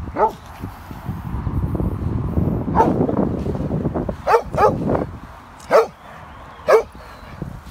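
A large black dog barking in short, sharp barks, about six times, two of them in quick succession around the middle.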